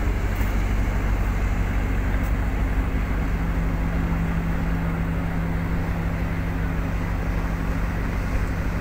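Small fishing trawler's engine running with a steady, even drone.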